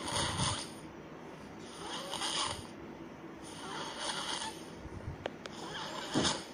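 A sleeping person snoring, one rasping breath about every two seconds.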